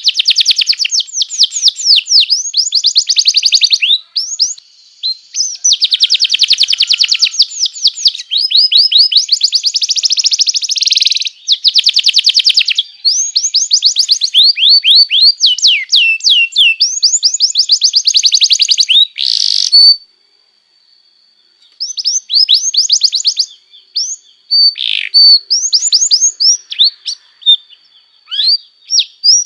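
Domestic canary singing: phrase after phrase of fast trilled rolls of rapidly repeated high notes, with a short pause about two-thirds of the way through. A thin held high note runs under the final phrases.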